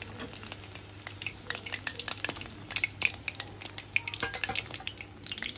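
Jackfruit pakoras deep-frying in hot oil in a kadhai: a steady sizzle full of small crackles and pops, with a perforated metal spatula turning the fritters near the start.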